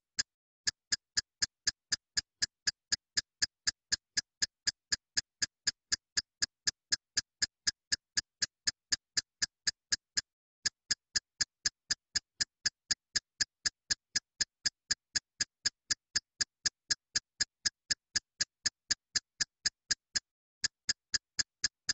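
Evenly spaced sharp ticks, about four a second, with near silence between them and a brief break about every ten seconds where the loop restarts. This is a looped ticking background track added in editing, not sounds of the food being handled.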